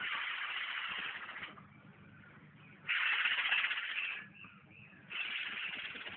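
Hoopoe hissing: three harsh, snake-like hisses, each over a second long, with short pauses between them.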